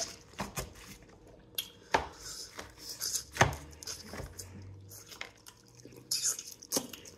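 Close-up eating sounds: lips smacking and sucking spicy seafood boil sauce off fingers, among scattered sharp clicks and taps.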